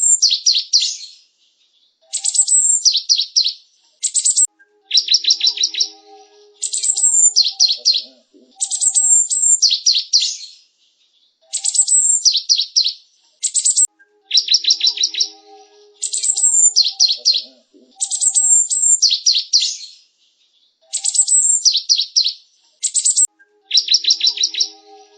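Cinereous tit (gelatik batu) singing: a short phrase repeated about every two seconds, each one a high sharp note followed by a quick run of repeated lower notes.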